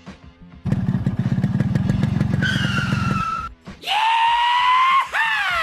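Motorcycle engine revving for about two and a half seconds, then tyre squeals: a falling screech, and about four seconds in a rising screech that turns and falls away near the end.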